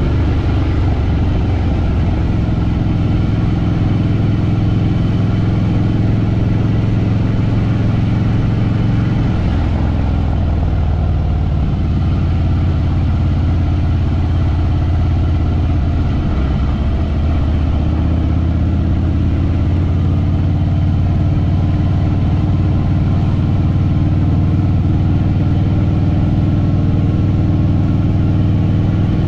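Harley-Davidson Fat Boy Lo's air-cooled V-twin engine running steadily under way. Its pitch drops about nine seconds in and shifts again around seventeen seconds, as the engine speed changes.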